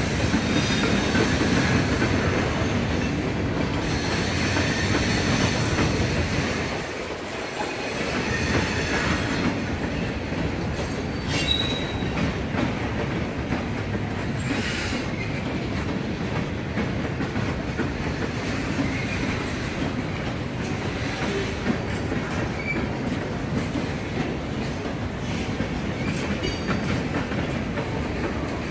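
Freight train of tank cars and covered hoppers rolling past at steady speed: a continuous rumble of steel wheels on rail with a rhythmic clickety-clack.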